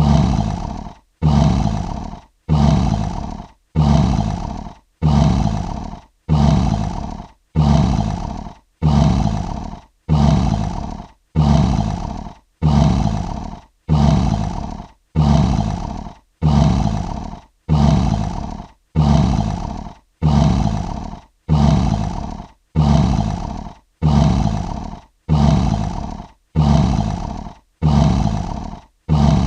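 Lion roaring grunt, one short call repeated over and over at an even pace of about one a second, each call starting loud, fading, and cutting off abruptly: a single sound-effect sample looped.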